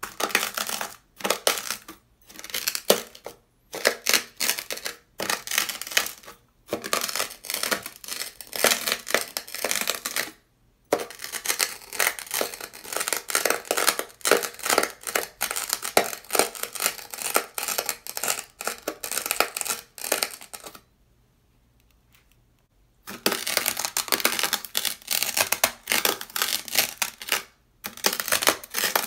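Knife blades scraping through dry, coarse beach sand on sandpaper, making gritty crunching strokes with short pauses between them. A metal knife is used first and a ceramic knife later. The sound stops for about two seconds some three-quarters of the way through, then the strokes resume.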